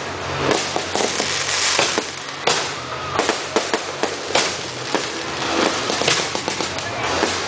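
Fireworks display: aerial shells bursting in a rapid, irregular series of bangs and crackles, several a second.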